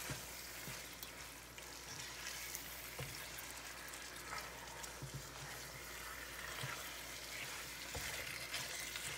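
Beef and sliced onions sizzling in a frying pan as a spatula stirs them, with a few light knocks of the spatula against the pan.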